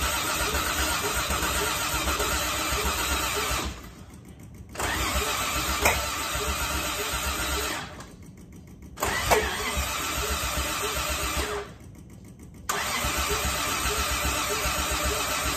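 Starter cranking the carbureted engine of a late-1960s Toyota Crown in four tries of about three to four seconds each, with the engine failing to catch and a sharp crack during the second and third tries. The engine has spark and fuel, but the ignition timing is off and is being adjusted between tries.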